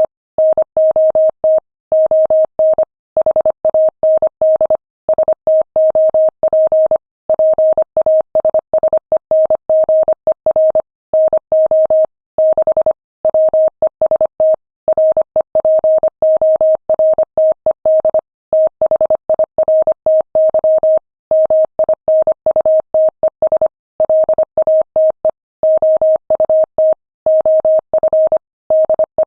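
Morse code at 25 words per minute: a single steady-pitched beep keyed rapidly into dots and dashes, with short breaks between words, spelling out a text message.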